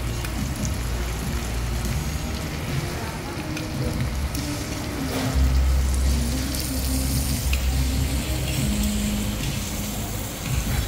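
Thin slices of beef sizzling on a hot Korean barbecue grill plate, as an even hiss over a steady low hum.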